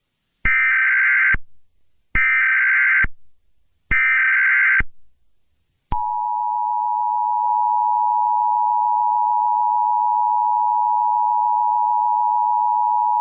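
Emergency Alert System signal: three short bursts of buzzing digital header tones, each about a second long, then about six seconds in the steady two-tone attention signal, which announces an emergency broadcast message.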